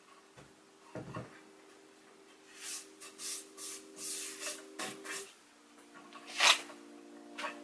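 Wooden pedalboard parts, ash slats and a mahogany frame, handled on a rubber mat: a light knock about a second in as the piece is set down, then a series of short brushing rubs of hands sliding over the wood, the loudest one near the end.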